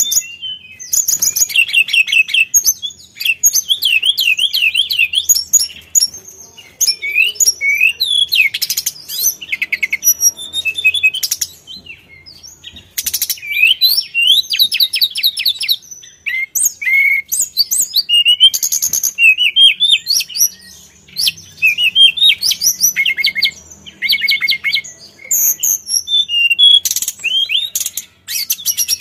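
Hill blue flycatcher (sulingan, tledekan gunung) singing a long, varied song: clear whistled phrases, fast trills and sweeping notes in rapid bursts, with brief pauses between them.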